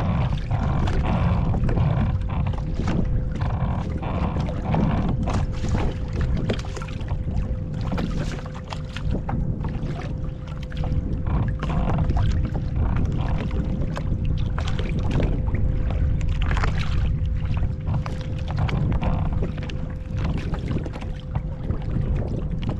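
Wind rumbling on the microphone aboard a fishing kayak at sea, with irregular splashes and knocks of water against the hull over a faint steady hum.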